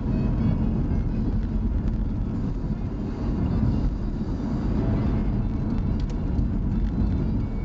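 Car running, heard from inside the cabin: a steady low engine and road rumble.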